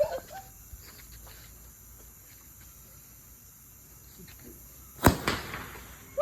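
Lit firecracker going off about five seconds in: a loud bang followed by a few quick sharp cracks.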